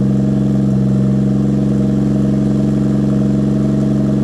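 Toyota 2JZ straight-six in a Cressida idling steadily through a freshly built 3-inch exhaust, warming up shortly after being started.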